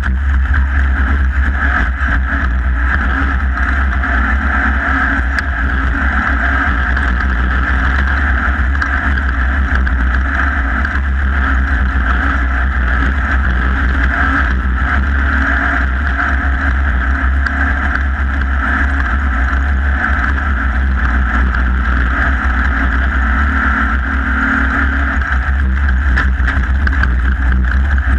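Off-road race vehicle's engine running hard at speed, heard from on board as a loud, steady, unbroken drone.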